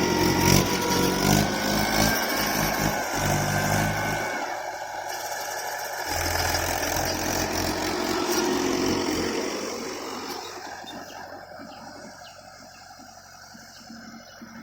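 Tractor engine running hard, with its note changing a few times in the first half. It grows fainter over the last few seconds.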